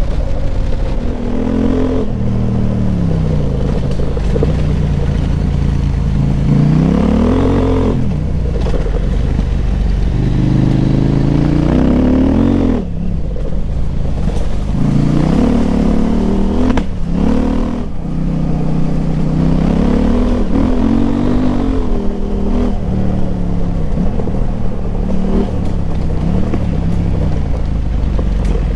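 KTM 890 Adventure R's parallel-twin engine breathing through a Wings slip-on exhaust with the dB killer removed, ridden under load. Its pitch climbs and drops again and again as the throttle opens and closes.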